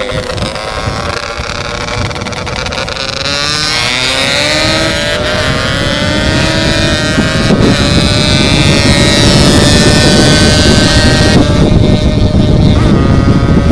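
Yamaha RX King's two-stroke single running hard through its aftermarket 'setengah dewa' expansion-chamber exhaust under way at speed. The engine note climbs slowly in pitch over the first several seconds, then holds high and steady as it grows louder.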